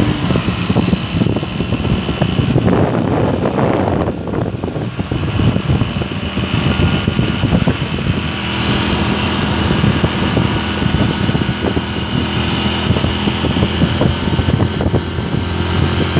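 Hero Honda Splendor motorcycle's single-cylinder four-stroke engine running steadily while riding along a road, mixed with wind rushing over the microphone.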